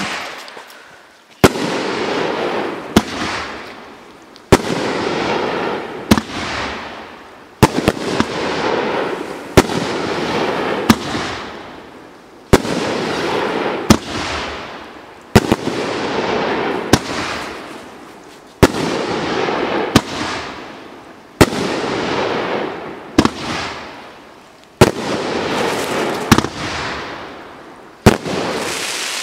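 A 500-gram, 15-shot consumer firework cake firing shot after shot, a sharp bang about every one and a half seconds, each followed by a crackling hiss that fades away.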